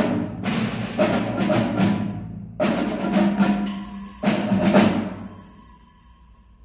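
Percussion ensemble of snare drum, conga drums and other hand-played drums striking a few loud accented blows together, the last one ringing away over the final two seconds.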